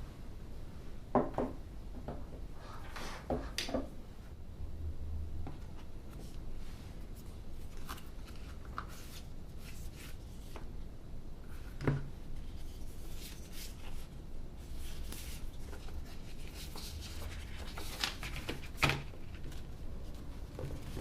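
Handling of the iPad Pro 11" packaging: soft rubbing and rustling of cardboard and wrapping, broken by a few sharp taps or clicks. The loudest taps come about a second in, around twelve seconds in, and near the end.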